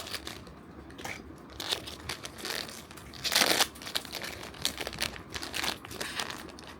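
Packaging of a blind box being opened by hand: irregular crinkling, rustling and tearing of plastic and cardboard, with one longer, louder rustle about midway.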